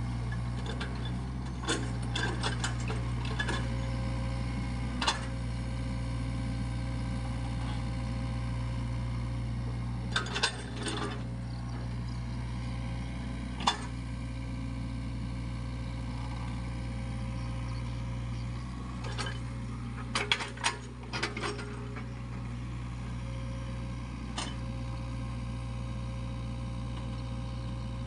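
SANY SY55C mini excavator's diesel engine running steadily while it digs wet mud, with scattered sharp metallic clanks and knocks from the working arm and bucket, coming in small clusters a few times.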